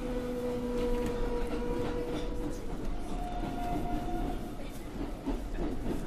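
R142A subway car running on the rails, heard with its air conditioning off: a steady rumble with scattered clicks, under electric motor whine whose tones shift, one fading about halfway through as a higher one comes in.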